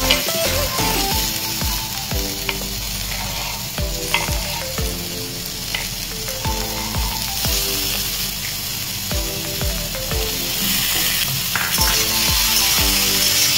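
Chopped vegetables sizzling as they hit hot oil in an iron wok, with a metal spatula clinking and scraping against the pan as they are stirred. Background music with a steady beat plays underneath.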